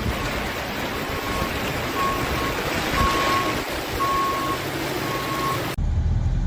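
Vehicle reversing alarm beeping, one steady high tone about once a second, over a steady rushing hiss. Near the end it cuts off abruptly to a low engine rumble.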